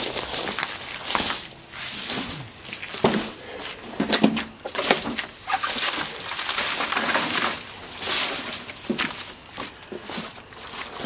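Footsteps crunching through dry leaves, twigs and brush, with rustling, in an uneven walking rhythm of about one to two crunches a second.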